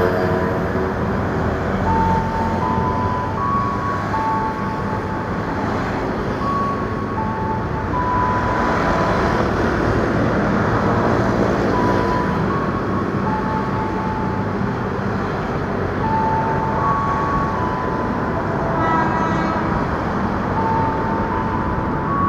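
Steady road traffic noise from the street beside the platform, with short high-pitched tones coming and going.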